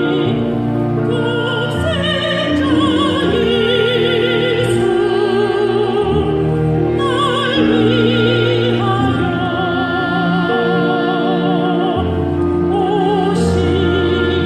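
Church music: a singing voice with wide vibrato holding long notes over sustained instrumental accompaniment, the melody moving slowly from note to note.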